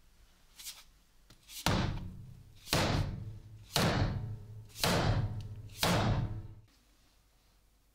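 End of a new ash hammer handle knocked down on a wooden tabletop five times, about once a second. Each knock is a sharp thud that rings out briefly.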